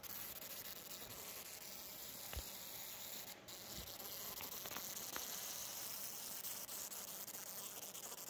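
A housefly stuck on its back, spinning as its wings beat: a faint, steady buzzing hiss, with a few faint ticks.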